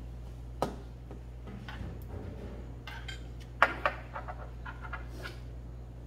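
Chopsticks clinking against a stainless steel bowl while rice is mixed in it: one sharp clink about half a second in, a louder pair about three and a half seconds in, then lighter taps.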